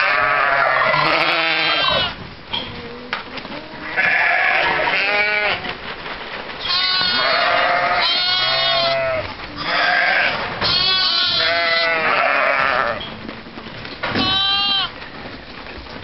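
A flock of lambs and ewes bleating: many high calls overlapping in loud stretches, with some deeper calls among them.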